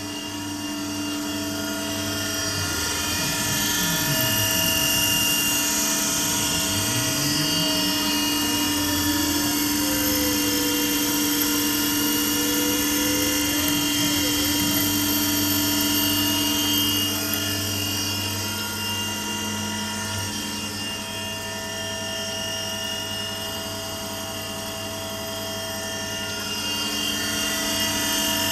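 CNC milling machine running while its end mill cuts a metal plate: a steady machine whine made of several held tones over a hiss, with pitches sliding down and back up a few times in the first half.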